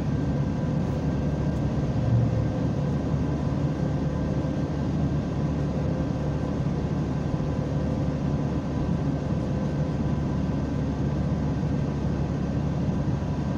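Steady engine and road noise of a semi-trailer truck cruising on the highway, heard from inside the cab, with a faint steady whine over the low rumble.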